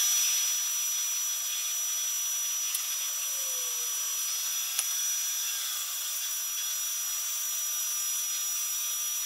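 Bandsaw running steadily as a thick knotty-pine board is fed through the blade, a constant hiss with a thin high whine over it.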